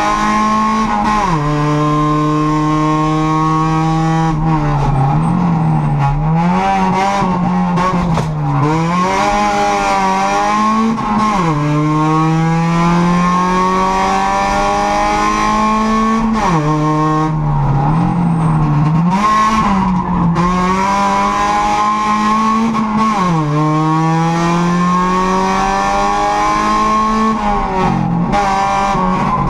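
Honda Civic race car's four-cylinder engine heard from inside the cabin, revving hard through the gears. The pitch climbs steadily and drops sharply at each upshift, and twice it dips and blips up and down as the car brakes and downshifts for corners.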